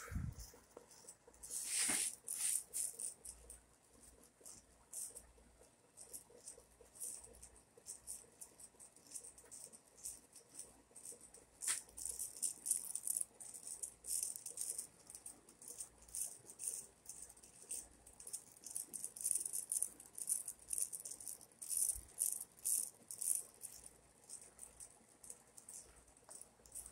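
Antique GE ceiling fan motor with a light, irregular rattling and clicking, dense and high-pitched, thickening about halfway through.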